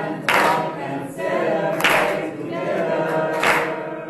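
A group of voices singing together in chorus, with sharp hand claps accenting the beat about every second and a half.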